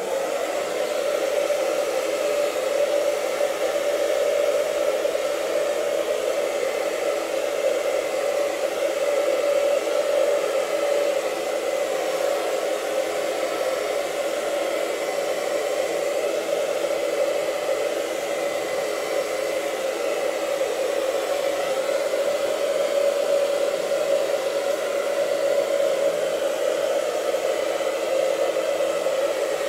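Handheld hair dryer switched on and running steadily, a constant whirring hum with an airy hiss, blow-drying a long beard.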